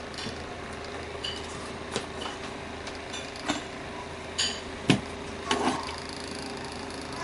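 Light clicks, taps and clinks of a TV box's circuit board being handled against its sheet-metal case, a few scattered knocks with the sharpest about five seconds in, over a steady low hum.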